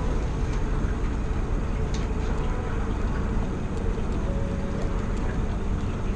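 Small kicker outboard motor running steadily at trolling speed on a fishing boat, a low even hum.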